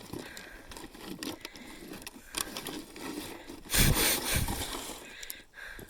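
Rustling and small clicks of gear and debris being handled, with a louder scraping rumble about four seconds in.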